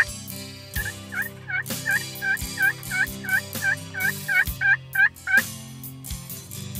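Wild turkey yelping: a long, even series of about fourteen hooked notes, roughly three a second, starting about a second in and stopping near the middle.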